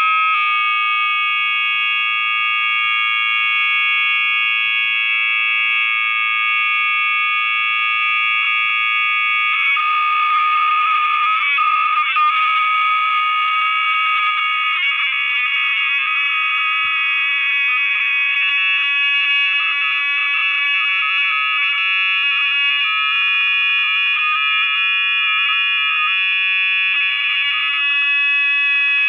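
Several steady, high-pitched electronic tones sounding together in one loud continuous drone. About ten seconds in the drone turns to a rapid flutter.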